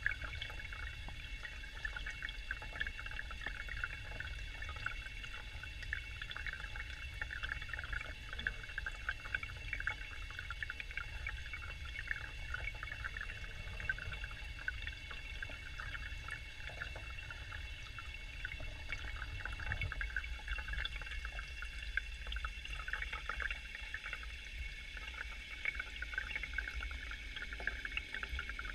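Steady trickling and splashing of running water in a fish-rearing tank, with a low rumble underneath.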